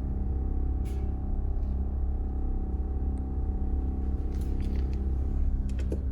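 Propane-fired Devil Forge foundry furnace burner running with a steady low rumble and hum, with a few light clicks.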